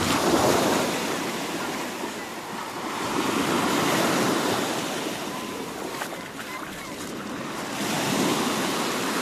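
Small sea waves washing onto the shore, swelling and fading three times, about four seconds apart.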